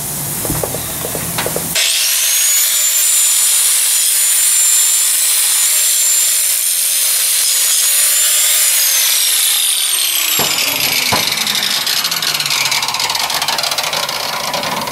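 Electric angle grinder switched on about two seconds in, its disc grinding a steel wheel stud's head held in a vise to take off material where it interferes, with a steady high whine. After about nine seconds the grinder is released and the whine falls as the disc winds down.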